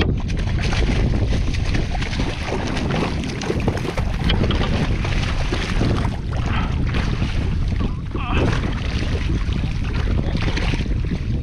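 Wind buffeting the microphone over water splashing as a hooked wahoo thrashes at the surface beside a kayak, with louder splashes about six, eight and ten seconds in.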